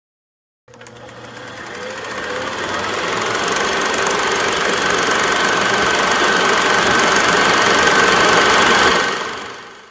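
Film projector running, as a sound effect: a fast, even mechanical clatter with a faint steady whine, swelling in over about three seconds and fading away near the end.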